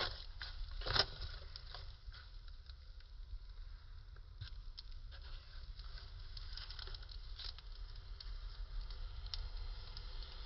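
Fire crackling, with irregular sharp pops that are loudest in the first second or so, over a low steady rumble.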